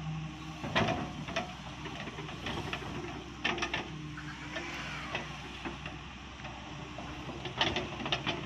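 Daewoo Solar 130 wheeled excavator at work, its engine running steadily as the bucket digs and lifts soil, with a few sharp clanks along the way.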